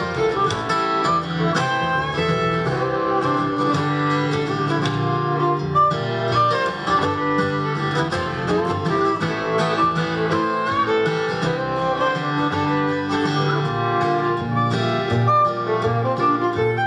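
Live acoustic string trio of fiddle, acoustic guitar and upright double bass playing an instrumental passage, with the guitar strumming, the fiddle carrying the melody and the bass plucking underneath.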